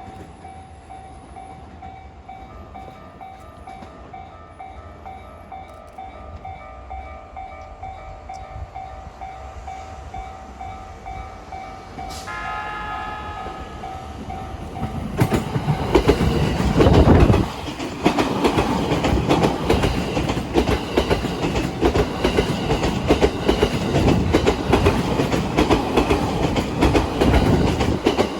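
Level crossing warning bell ringing in quick steady pulses, then about twelve seconds in a train horn sounds once for nearly two seconds. A freight train then passes over the crossing, loud with rhythmic clickety-clack from its wheels striking the rail joints.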